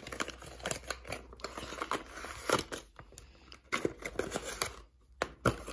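Hands handling a small cardboard box: cardboard sliding, scraping and tapping, with light rustling, in irregular short sounds.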